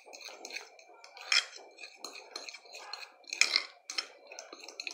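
A metal spoon stirring a thick egg-yolk, sugar and cassava-flour mixture in a glass bowl, scraping and clinking irregularly against the glass, with a few sharper knocks.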